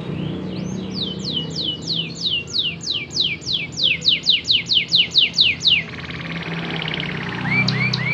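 Domestic canary singing: a run of about twenty descending whistled notes, roughly four a second, then after a pause a few short rising chirps and a fast trill.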